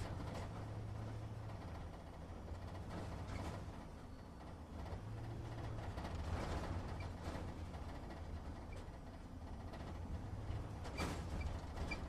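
Truck engine running at low speed, heard from inside the cab: a steady low hum that rises and falls slightly in pitch, with scattered clicks and knocks, the loudest about two-thirds of the way through and near the end.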